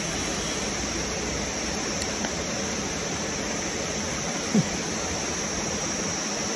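Steady rushing outdoor background noise with a faint high steady hum. There is a tiny click about two seconds in and a short falling hum-like sound a little after the middle.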